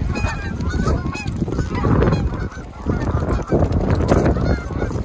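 A flock of Canada geese honking over and over, many short calls overlapping, as the birds take off. A heavy low rumble runs underneath.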